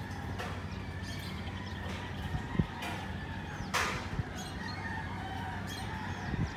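Roosters crowing across a village over a steady outdoor background, with a short louder sound nearly four seconds in.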